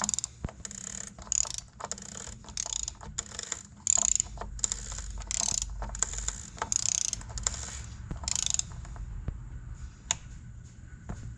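A torque wrench ratcheting in repeated short bursts of clicks as the plastic oil filter cap is tightened down. The ratcheting stops about nine seconds in, followed by a couple of single clicks.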